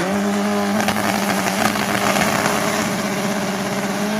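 Turbocharged drag-racing car engine revved up and held at high, steady revs for a burnout, its pitch settling just after the start and staying level, over a wash of noise.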